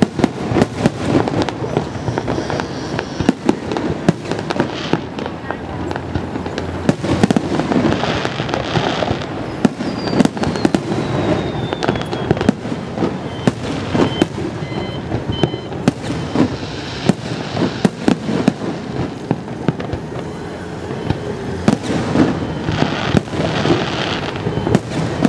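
Fireworks display: a dense, continuous run of aerial shell bangs and crackling bursts, with a thin falling whistle about ten seconds in.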